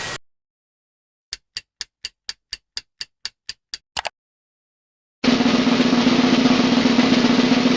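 Sound effects: a run of evenly spaced short ticks, about four a second, closing with a quick double tick, then after a pause a steady drum roll starting about five seconds in.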